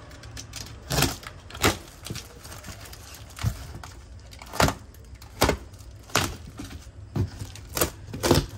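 Box cutter slicing through packing tape and cardboard on a shipping box: a series of short, sharp scraping cuts and cardboard cracks, about nine, unevenly spaced.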